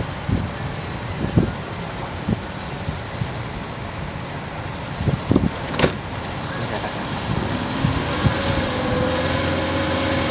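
Outdoor noise with scattered knocks and one sharp click about six seconds in; from about seven and a half seconds a motor starts running with a steady hum.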